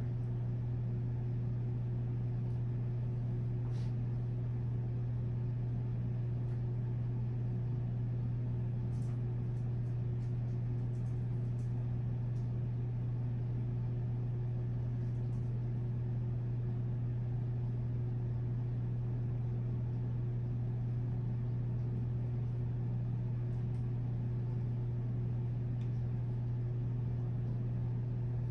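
Steady low hum with a light hiss, unchanging throughout: the room's background noise, with no voice over it.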